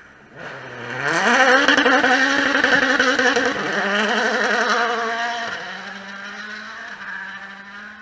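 A World Rally Car's 1.6-litre turbocharged four-cylinder engine at full throttle, passing close by. The pitch climbs sharply as it accelerates and stays loud and rasping. It then dips, and the car falls back to a quieter, steadier note as it drives away.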